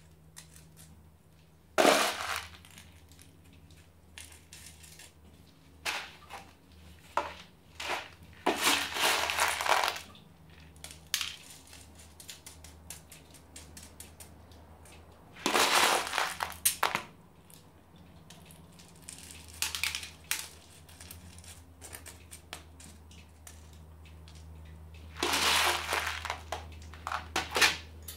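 Masato (coarse granite grit) being scooped and poured onto the soil of a potted succulent, the grains rattling down in several short bursts: about two seconds in, a longer run around eight to ten seconds, again around sixteen and twenty seconds, and near the end.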